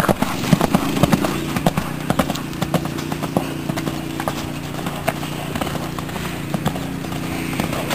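Horse's hooves beating on the sandy dirt of an arena at a canter: a quick, uneven run of soft thuds.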